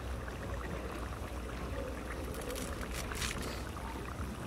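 Fresh coriander leaves being sliced against the curved iron blade of a boti, a few short crisp cuts in the second half, over a steady low rumble.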